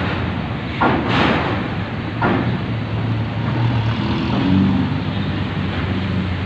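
Truck engine running steadily as vehicles drive up the steel bow ramp onto a roll-on/roll-off ferry. There are two loud, sudden noises, one about a second in and one a little after two seconds.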